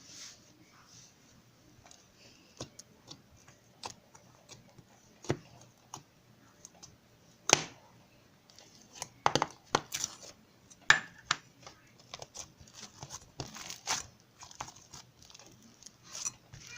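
Slime being handled: irregular sticky pops and crackles as air pockets burst and the slime pulls apart. They are sparse at first and come thicker about halfway through.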